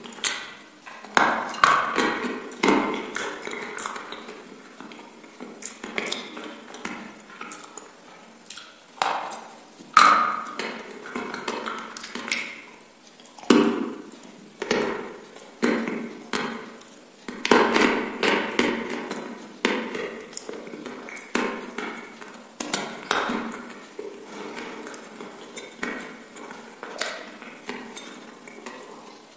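Close-miked mouth sounds of eating: irregular chewing with sharp crunches and wet clicks and smacks of the lips and tongue.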